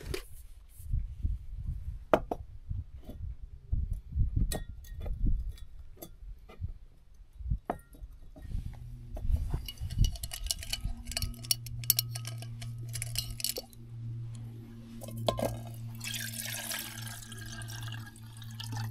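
Clinks and knocks of a kettle and camp cooking gear being handled and set up, then water pouring into the kettle near the end. A steady low hum starts partway through.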